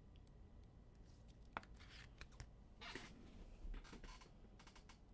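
Faint handling noise of trading cards and a rigid clear plastic card holder: a sharp click about a second and a half in, then several short rustles and scrapes.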